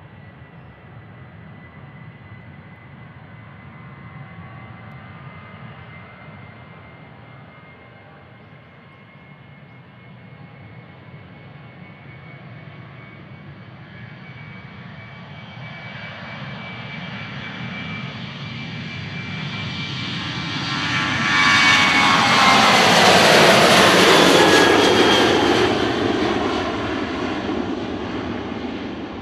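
Boeing 737-700's twin CFM56-7B turbofan engines at takeoff thrust: a steady high whine that grows louder as the jet rolls down the runway, swelling into a loud roar about three-quarters of the way through as it passes and lifts off. The whine drops in pitch at the peak, then the roar fades as the jet climbs away.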